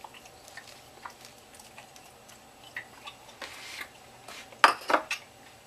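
Metal fork clicking and scraping against a ceramic bowl and plate as creamed spinach is scraped out. A few sharp clatters of crockery and cutlery come a little under five seconds in.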